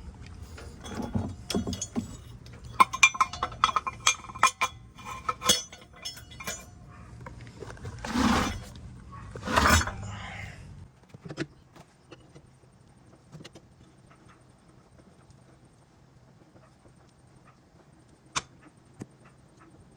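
Metal jack and wheel-changing tools clinking and rattling as they are packed away. There are rapid clinks for the first several seconds and two louder knocks around eight and ten seconds in, then it goes mostly quiet with an occasional click.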